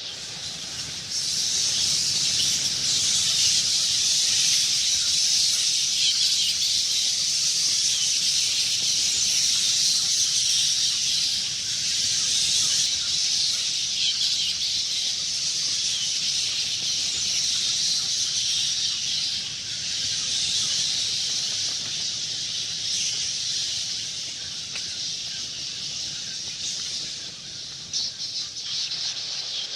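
A swarm of bats chittering: a dense, continuous mass of high squeaks that gets louder about a second in.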